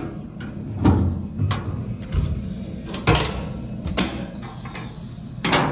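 Several sharp knocks and clunks at irregular intervals, some with a dull thud beneath, of the kind made by doors, lids or hardware being handled.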